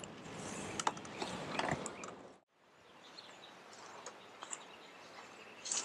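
A manual wheelchair rolling over asphalt, with scattered clicks, for about two seconds. The sound then cuts out, leaving quiet outdoor ambience with a few faint bird chirps.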